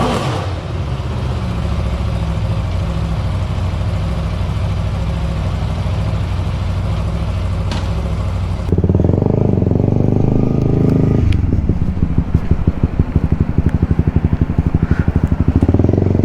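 Motorcycle engine running steadily. About nine seconds in it abruptly becomes louder, then settles into a rapid, even pulsing.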